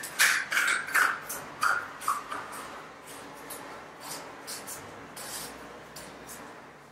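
Quick scraping strokes by hand at the edge of a freshly laid tile floor, about three a second for the first two seconds or so, then thinning out to a few faint scrapes and ticks.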